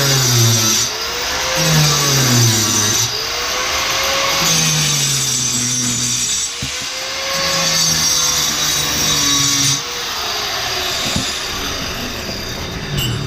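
Power tool cutting through wall tile and its cement backer board: a loud, steady grinding with the motor's pitch dipping and recovering every second or two as the blade bites and eases off.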